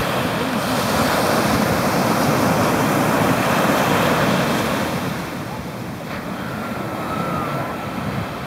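Ocean surf breaking and washing up the shore: a steady rushing that swells for a few seconds, then eases about five seconds in.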